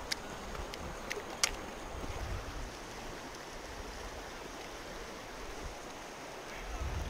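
Shallow river running over a gravel bed, a steady rush of water, with a few sharp clicks in the first second and a half, the loudest about a second and a half in.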